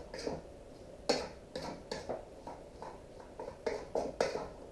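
Cooking utensil scraping and clacking against a wok as sliced peppers and onion are stirred and sautéed, a string of irregular light knocks about every half second. The wok is still heating up.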